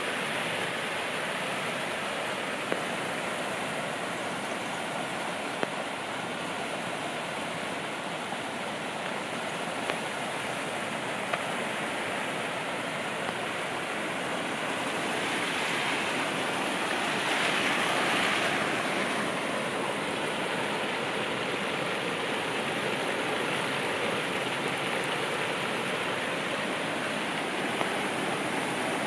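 Steady rain falling, an even hiss of water with a few sharp single ticks of drops close by. The hiss swells for a few seconds a little past the middle.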